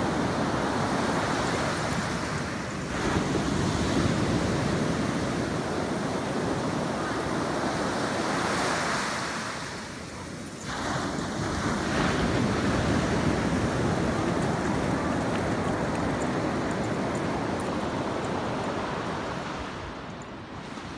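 Ocean surf breaking and washing up the beach: a steady rush of noise that dips briefly about ten seconds in.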